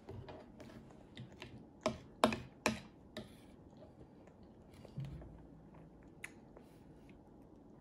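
Fork clicking and scraping against a ceramic plate: a run of sharp clicks about two to three seconds in, then a dull knock about five seconds in.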